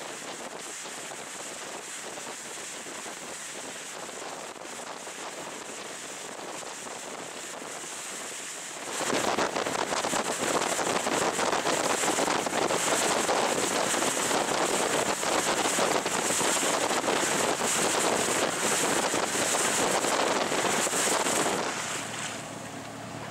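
Wind rushing over the microphone and water rushing past a moving boat. About nine seconds in it gets suddenly much louder and buffets raggedly as the boat runs faster, then eases near the end.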